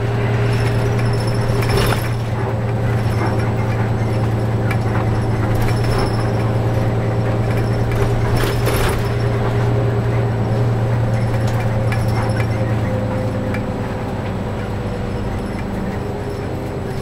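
Nissan Diesel RN bus's diesel engine running steadily while the bus drives, heard from inside the passenger cabin as a constant low drone, with a few short knocks and rattles. It eases slightly near the end.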